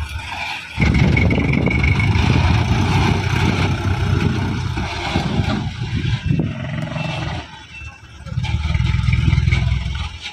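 Sand dump truck's engine running, with a brief lull about eight seconds in before it picks up again.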